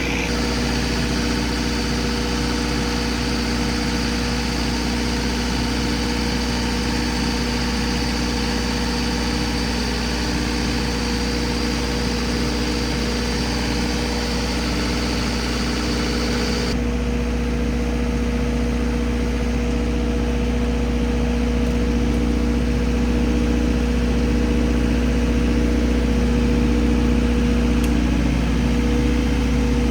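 Turbo diesel generator engine running steadily, with a high whine over it that stops a little over halfway through.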